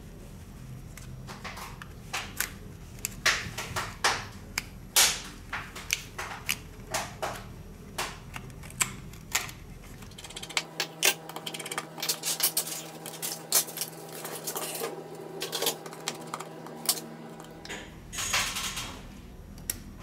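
Quick irregular clicks and taps of small repair tools against a smartphone's plastic parts and the bench, over a steady electrical hum. From about ten seconds in a steady droning tone joins for several seconds, and near the end a rushing noise sets in.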